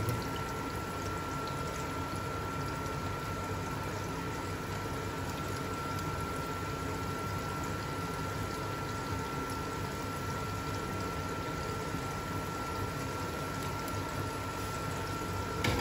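Breaded fish fillets deep-frying in hot oil in a frying pan, a steady sizzle throughout, with a short sharp tap at the very end.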